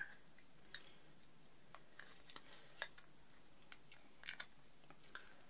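Faint clicks and light scrapes of a thin metal pin being handled against the plastic lid of an earbuds charging case, with the sharpest click about three-quarters of a second in.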